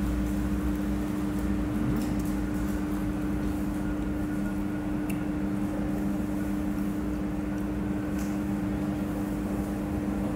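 Steady machine hum with a low drone underneath, of the kind made by a refrigerator compressor or ventilation fan, with a few faint clicks about two, five and eight seconds in.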